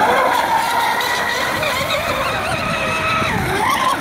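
Electric motor whine of a large 12S Fine Design Marine Snack Attack RC racing catamaran running at speed, over the hiss of its hull and spray on the water. The pitch holds high, sags about three seconds in, then climbs again near the end as the throttle comes back up.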